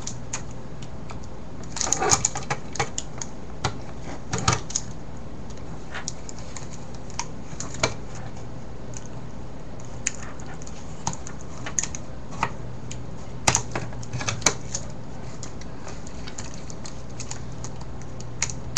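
Small plastic Rubik's 4x4 cube pieces and tape being handled: scattered light clicks and taps, some in quick little clusters, over a steady low hum.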